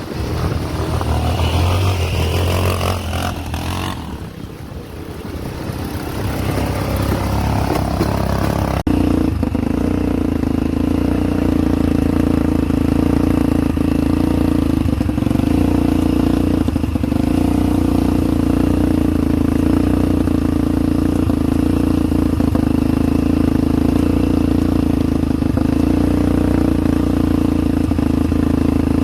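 ATV engine running, its pitch changing over the first few seconds. After an abrupt change about nine seconds in, it holds a steady pitch.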